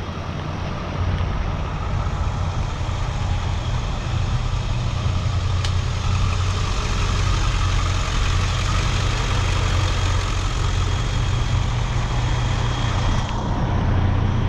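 Large vehicle's engine idling: a steady low rumble.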